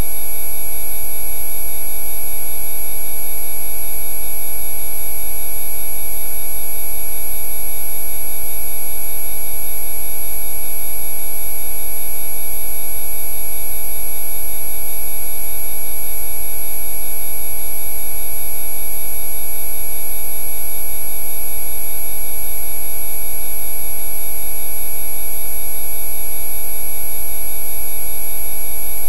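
Synthesized Rife frequency tones: several steady pure pitches, low and high, sounding together without change.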